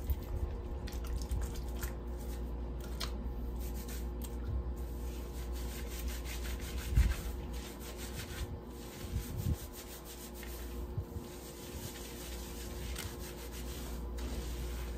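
Hands scrubbing shampoo through long wet hair: a steady rubbing, over a low background hum, with a dull bump about seven seconds in.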